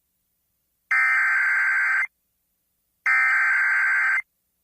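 Emergency Alert System SAME header: two bursts of digital data tone, each about a second long and about a second apart, the last two of the header's three repeats that announce an incoming warning.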